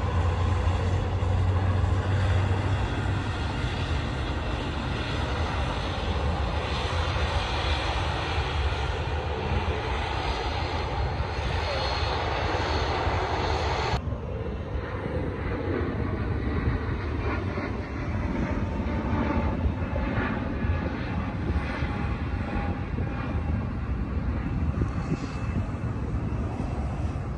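Twin turboprop engines of a Dash 8 Q400 airliner running as it rolls along the runway, with a strong low hum. About halfway the sound cuts off suddenly to a quieter, more distant aircraft engine sound over a low rumble.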